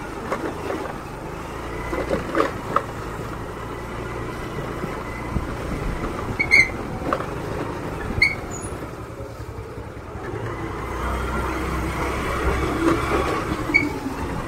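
Motorcycle engine running at low speed while riding, with a steady low rumble and a few knocks, and three short high chirps, two in the middle and one near the end.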